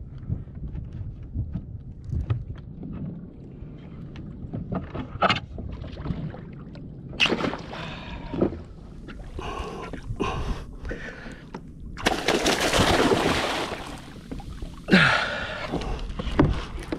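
Water splashing and sloshing around a plastic fishing kayak, with wind rumbling on the microphone and a run of sharp knocks and clatters from the hull and gear. Louder rushes of splashing come a few times, the longest lasting about two seconds past the middle.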